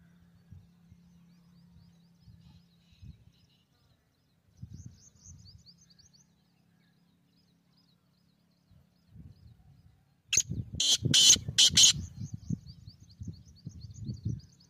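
Black francolin (kala teetar) giving its loud call of about four sharp notes in a second and a half, about ten seconds in. Small birds twitter high and faint throughout, over low rumbling.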